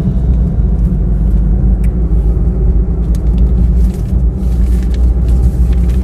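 Steady low rumble of a car driving: road and wind noise heard from the moving vehicle.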